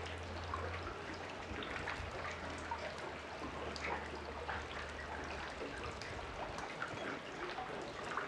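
Lake water lapping and trickling, a steady wash of small irregular splashes and drips. A low steady hum runs underneath until about six seconds in.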